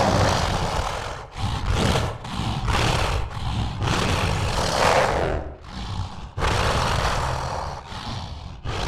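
Monster roar sound effects: a run of several long, rasping creature roars and hisses with short breaks between them.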